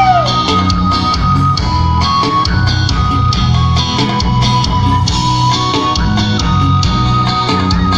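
Live band music with no vocals: a melody of held, stepping notes over pulsing bass and a steady drum beat.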